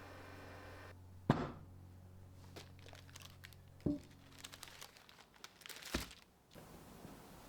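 Kitchen handling noises: a sharp knock about a second in and another a few seconds later, then a run of small crinkling clicks with a thud.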